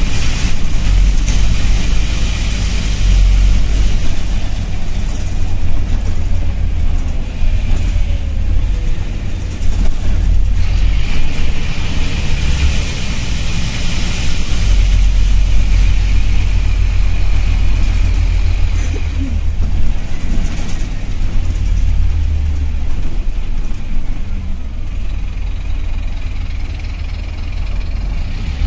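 Inside a moving East Lancs Esteem-bodied Scania N230UB single-deck bus: the diesel engine and road noise run steadily, swelling and easing with the driving, under a continuous high hiss from a loud air leak in the bus's air system.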